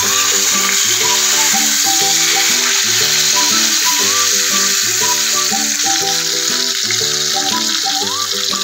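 Background music with a melody over the steady sizzle of a marinated pomfret shallow-frying in oil in a pan.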